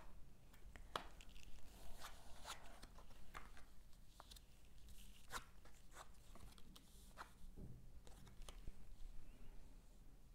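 Deck of cards handled and shuffled by hand: scattered soft clicks and papery rustles at irregular intervals, over a low steady hum.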